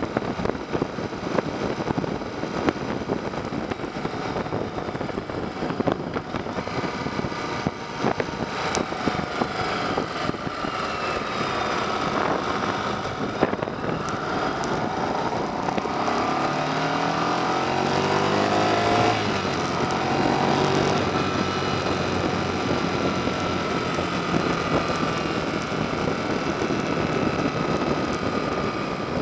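Yamaha XV 750 V-twin engine running while riding, with wind rushing over the microphone. The engine pitch rises and falls with the throttle, stepping up and down through gear changes about two-thirds of the way through.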